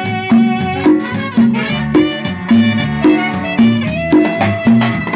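Live banda playing, with saxophones on the melody over a bouncing bass line, the beat falling about twice a second.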